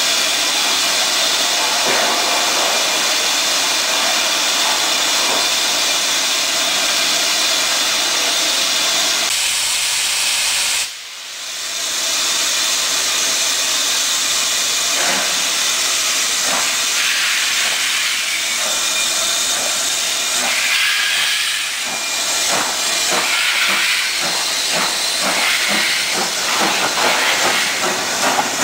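Loud, steady hiss of steam escaping from BR Standard 'Britannia' 4-6-2 no. 70013 Oliver Cromwell standing at the platform, venting from its cylinder drain cocks and above the boiler. After a short break about eleven seconds in, the hiss goes on and a growing run of uneven knocks and beats joins it toward the end as a steam train moves past.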